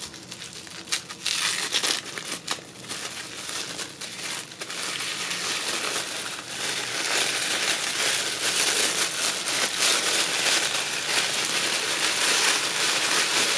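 Tissue paper crackling and rustling as hands unfold and crumple it: scattered crackles at first, then continuous and louder from about halfway.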